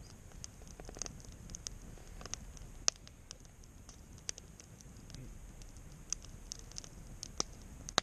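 Wood campfire crackling: irregular sharp pops and snaps over a low, steady noise from the fire, with the loudest pops about three seconds in and again near the end.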